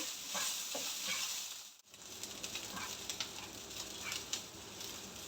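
Minced garlic, ginger, lemongrass and galangal sizzling in hot oil in a non-stick pan while being stir-fried, with small clicks and scrapes of the stirring. The sound drops out briefly about two seconds in.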